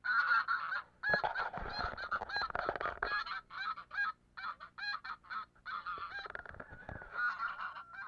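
White domestic geese honking, a rapid run of short, loud honks repeated many times over.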